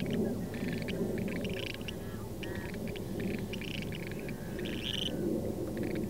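Clark's grebes calling: a string of short, high, grating calls, the strongest about five seconds in, over a steady low background rumble.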